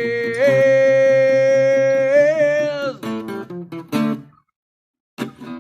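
Man singing one long held note, pitch stepping up and wavering near its end, over a strummed acoustic guitar. The guitar carries on alone, then the sound cuts out to total silence for under a second before the strumming comes back.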